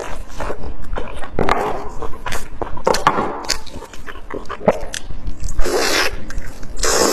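Close-miked eating of lamb chops: biting and chewing meat off the bone, with many wet smacking clicks and a few longer, louder gnawing bursts.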